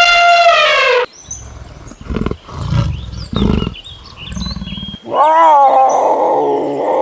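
Farm animals calling: a long, loud, steady-pitched call that ends about a second in, then a second loud call that starts with a wavering pitch about five seconds in and holds on. Short high bird chirps come in between.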